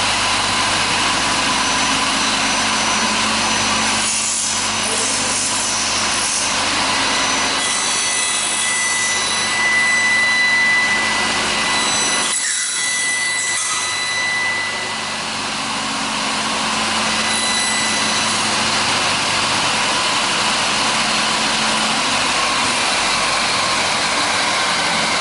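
Five-blade aluminium profile end milling machine running a cycle: its blade motors run steadily while clamped aluminium profiles are carried past the cutters. A high whine rises out of the noise in the middle, and the level dips briefly about halfway through.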